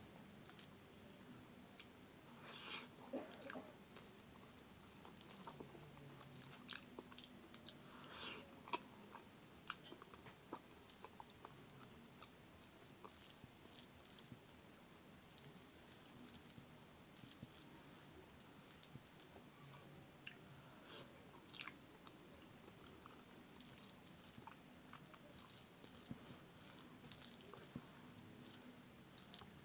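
A person chewing soft, wet food close to the microphone: rice with its starch water, boiled potato and omelette. Faint wet mouth clicks and smacks come throughout, with a few louder ones.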